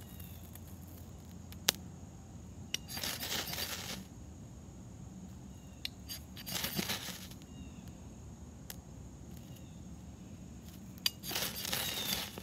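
Steel knife blade scraped hard down a ferrocerium rod three times, each a harsh scrape of about a second, with a few sharp clicks between strokes. The strikes throw sparks onto a pile of wood scrapings, trying to light them without fatwood.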